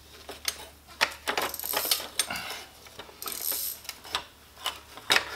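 Metal exhaust header pipes and clamp hardware being handled and fitted by hand: irregular clicks and knocks of metal on metal, with a couple of brief scrapes.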